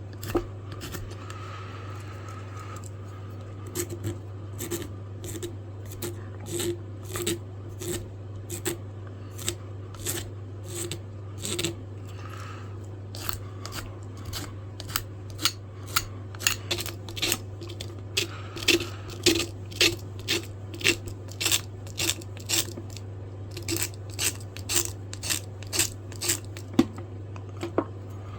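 Hand file strokes on wooden knife handle scales, rounding off the edges: short scraping strokes in a steady rhythm of about two a second, over a steady low hum.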